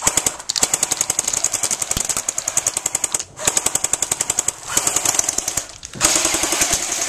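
Airsoft electric gun firing full-auto: rapid mechanical clicking shots, about fifteen a second, in three long bursts with brief pauses between them.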